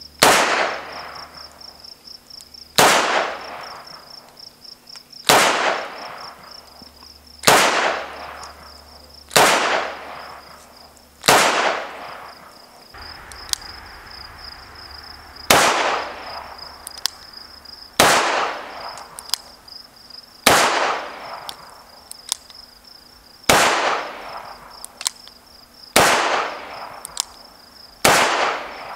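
Taurus 856 snub-nose revolver firing .38 Special rounds: twelve sharp shots about two to two and a half seconds apart, in two strings of six with a longer pause after the sixth. A steady high-pitched chirping runs underneath.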